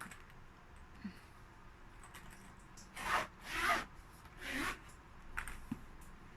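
A kalimba's EVA carrying case being handled and opened: three short rasping strokes over about two seconds.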